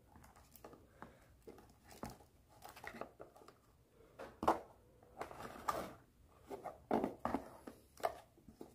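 Whole garlic bulbs and lime slices being pressed by hand into a clear plastic jar: quiet, irregular rustles of papery garlic skin and light knocks against the plastic.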